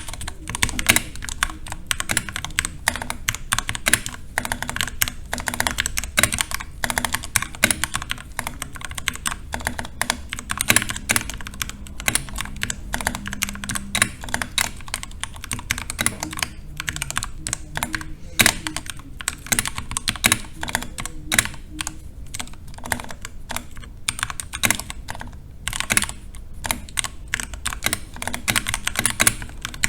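Typing test on a custom aluminium-cased mechanical keyboard with Krytox-lubed Tealios V2 linear switches and PBT keycaps: a fast, steady stream of key strikes with a few short pauses.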